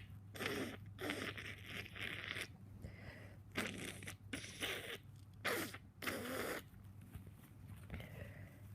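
A person blowing their nose: a run of short, noisy blows and sniffs, irregular at about two a second, the strongest about five and a half to six and a half seconds in.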